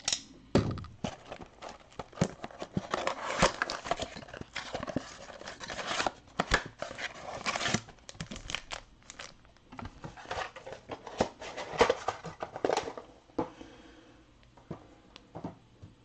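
A trading-card blaster box being torn open by hand, its wrapping and cardboard crinkling and tearing, with the foil packs inside rustling as they are pulled out and stacked. The handling is busy with sharp crackles and clicks, then dies down to a few faint rustles about three seconds before the end.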